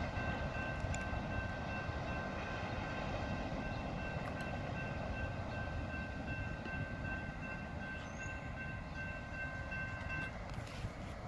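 Autorack freight train rolling past and away: a steady rumble of wheels on rail. Over it is a steady high ringing tone that cuts off near the end.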